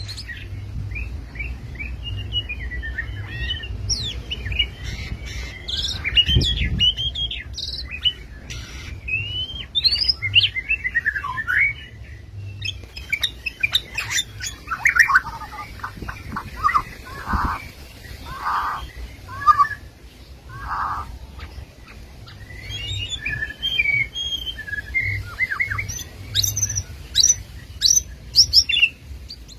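White-rumped shama (murai batu) singing a long, varied song: whistled phrases and rapid chattering runs, with a few lower, fuller whistled notes in the middle, over a faint low hum.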